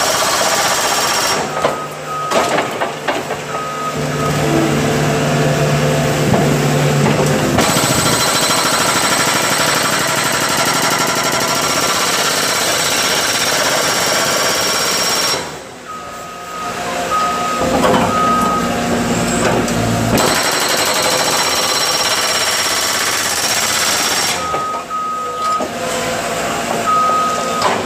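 Champ 400V hydraulic breaker hammering into a concrete sidewalk in long runs of rapid blows, stopping twice along the way. In the pauses the machine's engine runs on and a reversing alarm beeps.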